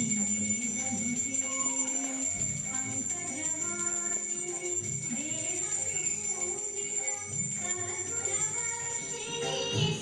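Music, with high ringing tones held throughout and a melody moving underneath.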